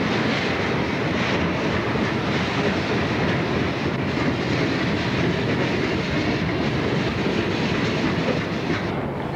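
Conrail freight train rolling past close by: the steady noise of its cars' wheels running over the rails.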